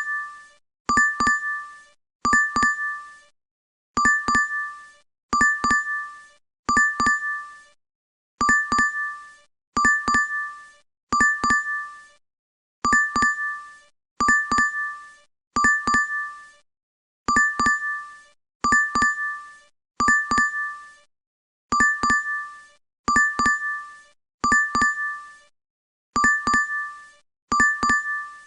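DoorDash app notification chime playing over and over: a quick double ding with two bright ringing tones, repeating about every one and a half seconds, with an occasional slightly longer pause.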